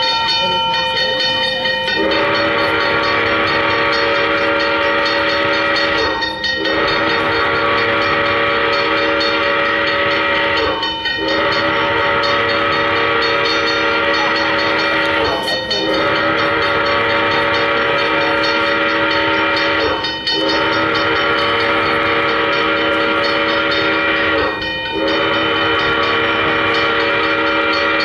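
Multi-chime train horn blowing a steady chord in a series of long blasts, each about four and a half seconds, with brief breaks between them. A different, higher-pitched steady tone comes first, for about two seconds.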